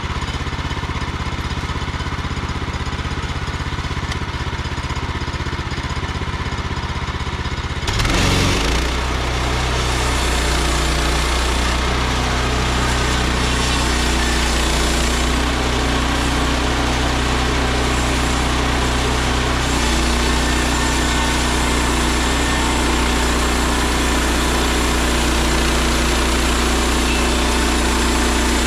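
Portable band sawmill's gasoline engine idling, then revved up about eight seconds in and running steadily at higher speed.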